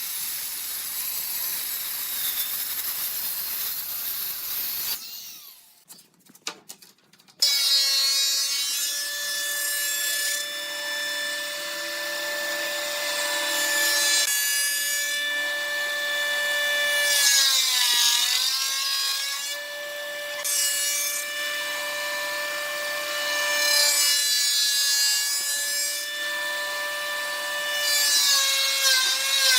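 Woodworking power tool at work on wood: an even hiss at first, then after a short pause the motor starts with a steady whine. Repeated gritty bursts come every few seconds as the tool cuts, and the whine dips briefly under load.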